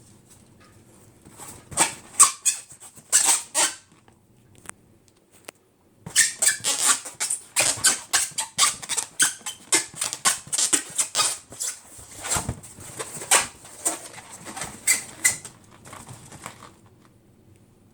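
Rubber balloons being handled, a quick irregular run of sharp scuffs and squeaks in two bursts, a short one and then a longer one.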